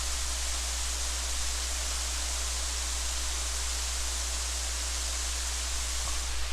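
Water rushing steadily over the falls of a mill dam.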